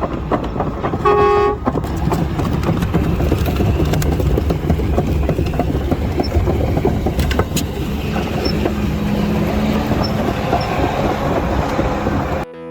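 Heavy machine engine running with a steady low rumble, with a short horn toot about a second in and a few sharp knocks.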